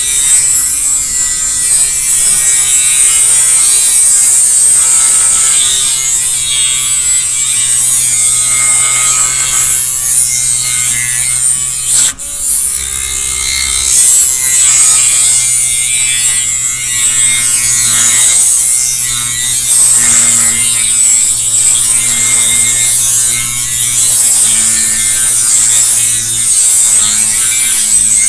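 Dremel rotary tool with a thin abrasive cut-off disc cutting through a small metal suspension plate, the motor running steadily with a high grinding hiss as the disc bites, throwing sparks. The sound briefly drops out once about twelve seconds in, then carries on.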